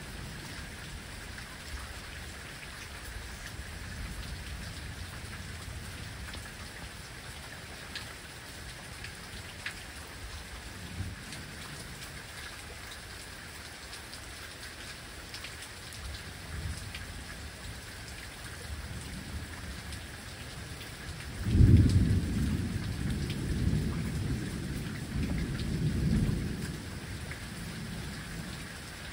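Steady rain falling on a waterlogged lawn, with scattered drops ticking. About three quarters of the way through, a low rumble of thunder rolls for several seconds and is the loudest sound.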